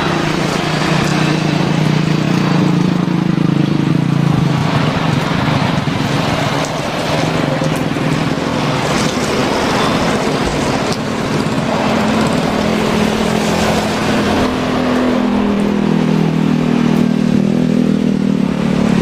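Jet engines of a landing Airbus A320neo, a loud low drone whose pitch dips midway and climbs again near the end, over a steady hiss of heavy rain and spray.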